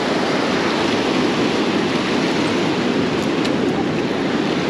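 Ocean surf breaking and washing up the shore: a steady rushing hiss.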